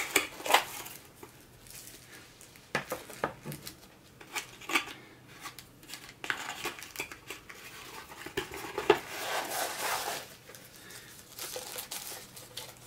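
Packaging handled by hand: a small cardboard box opened and rummaged with scattered taps and scrapes, and a plastic bag crinkling in two longer stretches, the second near the end.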